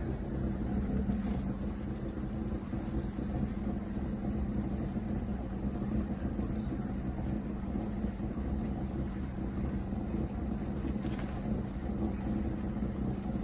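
A steady, low mechanical hum with a constant pitch, like a running motor or engine.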